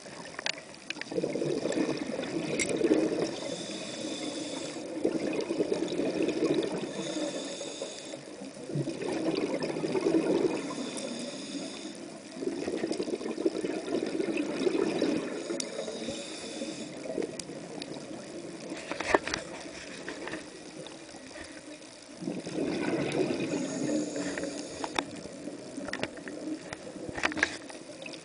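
A scuba diver's own regulator breathing, heard underwater: rumbling surges of exhaled bubbles lasting a few seconds each, with quieter pauses between breaths. A few sharp clicks stand out, the loudest about two-thirds of the way through.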